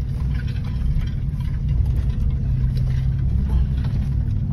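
Truck engine and drivetrain pulling in four-wheel drive up a rough dirt hill, heard from inside the cab as a steady low rumble.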